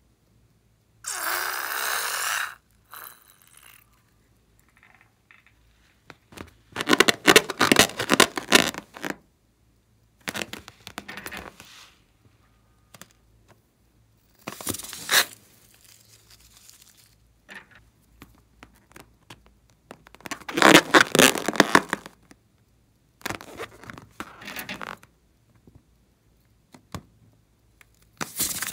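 Slime-filled rubber balloons squeezed and snipped open with scissors, the slime squirting and spilling out of them. The sound comes in several separate bursts of one to three seconds each, with short quiet gaps between.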